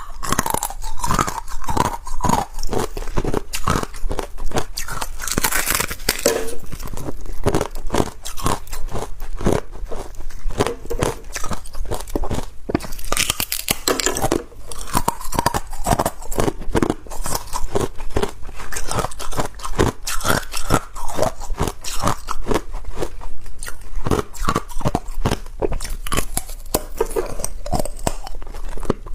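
Ice being bitten and chewed, a rapid, irregular run of sharp cracks and crunches several times a second.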